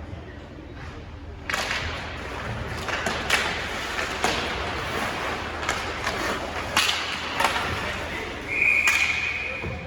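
Ice hockey play on the rink: skates scraping on the ice and sharp clacks of sticks and puck. Near the end, a short whistle blast, typical of a referee stopping play.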